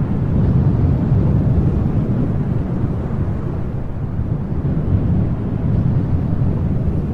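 Wind blowing with a low, steady rumble that swells and eases a little, without gaps.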